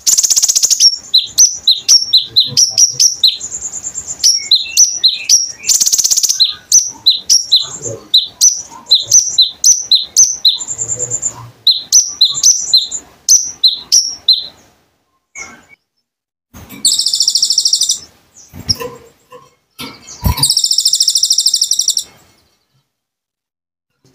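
Konin bird singing: a fast run of sharp, high chirps, about three a second, broken now and then by short loud buzzy trills. About halfway through, the chirping stops and two longer buzzy trills follow a few seconds apart.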